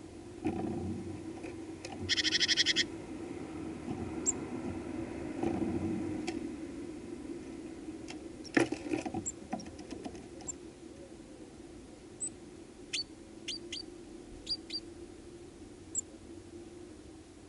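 Small birds at a seed feeder: a short, loud buzzy call about two seconds in, then a burst of scuffling and clicks as a great tit lands on the seed with a peanut, followed by scattered thin high chirps and sharp pecking clicks. A steady low hum runs underneath.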